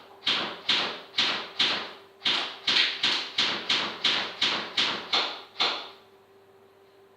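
Thumb wheel of a high-capacity airsoft magazine being wound: a quick run of about a dozen sharp ratcheting strokes with a short pause partway, stopping about six seconds in. The winding tensions the magazine spring to feed the BBs.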